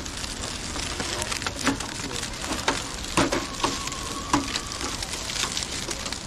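Small RC rock-crawler truck crunching through dry leaves and over rocks: irregular crackling and rustling with a few sharper ticks. A thin steady whine sounds for about a second and a half in the middle.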